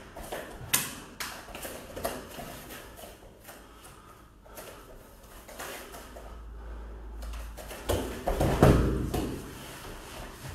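A barefoot person moving on foam puzzle mats: feet stepping and thudding, with scattered short knocks and a louder cluster of thuds about eight seconds in.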